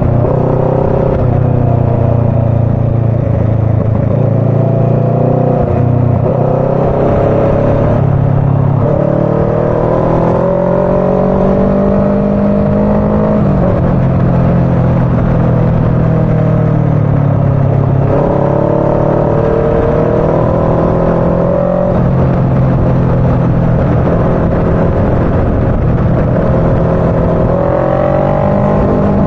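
Motorcycle engine heard from the rider's seat while riding. Its revs climb and then drop back several times as the bike accelerates and eases off or changes gear.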